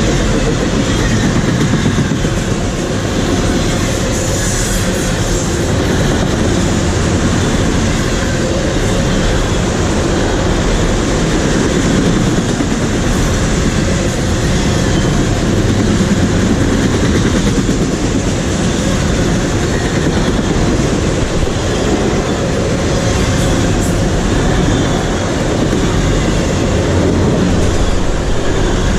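A train rolling past close by, its cars clattering steadily over the rails with no let-up.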